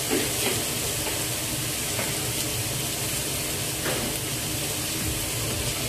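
Chopped onions and whole spices sizzling in olive oil in a stainless steel pot: a steady frying hiss with a few faint crackles.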